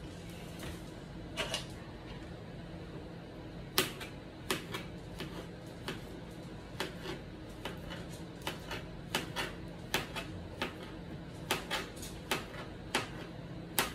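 Kitchen knife slicing a banana on a plastic cutting board: sharp, irregular taps of the blade striking the board, starting about four seconds in and coming about one to two a second, over a faint steady hum.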